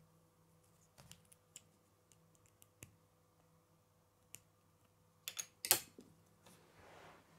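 Plastic K'nex rods clicking and snapping into a red K'nex connector: scattered light clicks, then a quick run of sharper snaps a little over five seconds in, and a soft rustle near the end.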